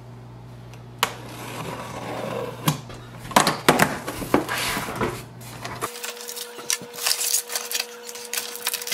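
Cardboard printer box being opened and unpacked by hand: flaps pulled up and folded back, cardboard inserts scraping and rustling, with sharp knocks and taps as pieces are handled, coming more often in the second half.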